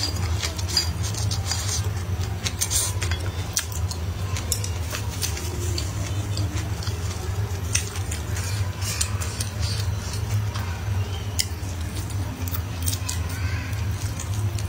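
Close-miked chewing of stir-fried greens and meat, with many small wet clicks and smacks of the mouth, over a steady low hum.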